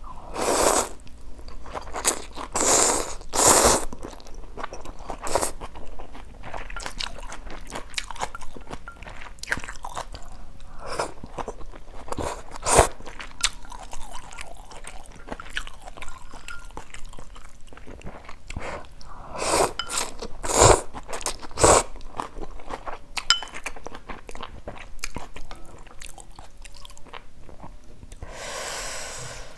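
Close-miked slurping and chewing of instant noodles in soup, with wet mouth clicks between several loud slurps; the longest slurp comes near the end.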